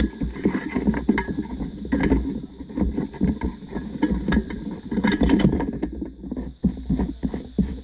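Close handling noise: irregular knocks, clicks and rubbing over a low rumble, as the metal subwoofer pole and the camera are handled.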